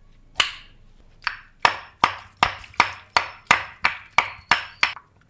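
A dozen sharp, ringing knocks in a quick, even rhythm, about three a second, stopping shortly before the end.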